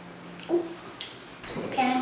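A child's voice pausing mid-sentence: a short voiced sound, a light click, then the child's speech resuming near the end.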